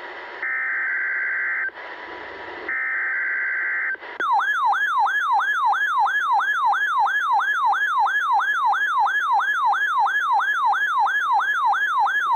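NOAA Weather Radio broadcast sending its EAS/SAME digital header: short bursts of two-pitch data chirping, separated by about a second of radio hiss, marking the start of a Required Weekly Test. About four seconds in, the weather alert radio's own alarm goes off: a loud warbling siren tone rising and falling about three times a second, the receiver's sign that it has been activated by the alert.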